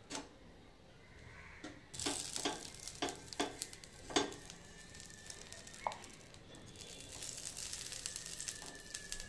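Hot cast-iron dosa tawa sizzling as its surface is rubbed and wiped by hand, between dosas. It starts about two seconds in with several sharp scraping strokes, then settles into a steadier sizzle.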